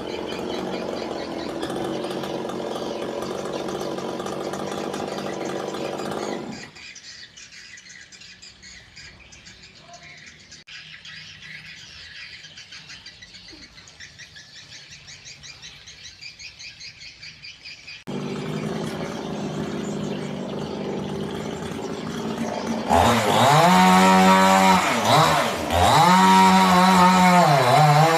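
Chainsaw running steadily, then cut off abruptly for a quieter stretch of birds chirping, before the saw returns. About 23 seconds in it gets much louder, its engine revving up and down repeatedly as the chain bites into wood.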